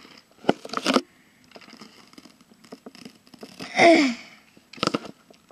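Handling noise from a plush dancing Mickey Mouse toy held close to the microphone: scattered taps and knocks, with a brief falling squeal about four seconds in.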